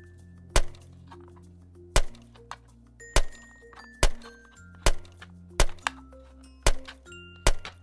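Yellow plastic toy knife chopping through Play-Doh and knocking on a plastic cutting board: about eight sharp chops, roughly one a second.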